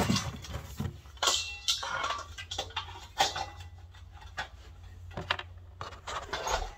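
Scattered light knocks and clicks close by, irregular and unevenly spaced, over a low steady hum.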